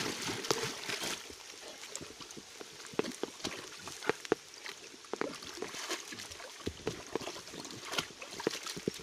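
German shepherd swimming through a muddy, flowing stream: irregular splashes and sloshing from its paddling over the steady rush of running water.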